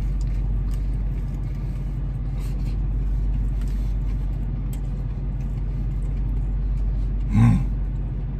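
Steady low hum of a parked car running, heard from inside its cabin, with faint chewing over it and a short 'mm' near the end.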